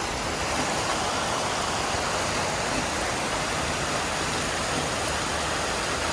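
Steady rain falling: an even hiss that does not let up.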